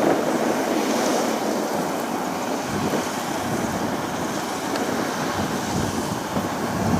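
Kubota combine harvester running steadily at work, its engine and machinery making an even noise.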